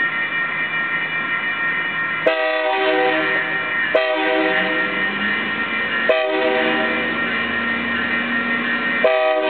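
Freight diesel locomotive's air horn sounding through a grade crossing: a steady chord with fresh blasts starting about two, four, six and nine seconds in.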